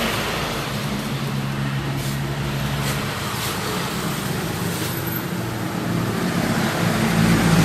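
Steady hum of a running motor vehicle engine, with its low pitch shifting slightly a couple of times and a few faint clicks.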